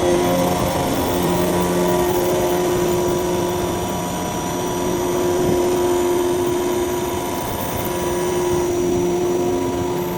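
CNC duplex milling machine running, its two spindles milling both ends of a steel block: a steady machine drone with held tones that break off and come back every few seconds.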